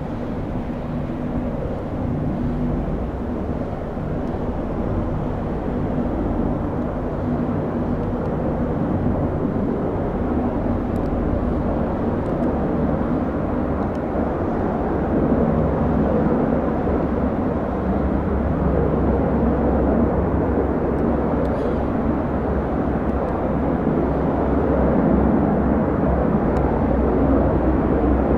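Three-engined AgustaWestland AW101 Merlin helicopter flying overhead: a steady, low rotor and turbine drone that slowly grows louder.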